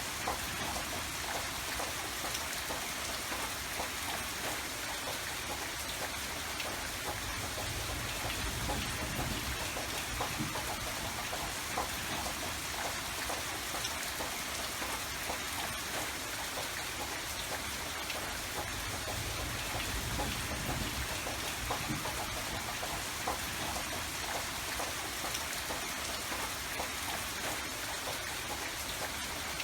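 Steady rain falling, with many fine raindrop ticks on surfaces.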